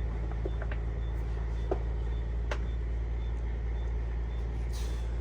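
Steady low drone of an idling engine, with a few faint light clicks and a short hiss near the end.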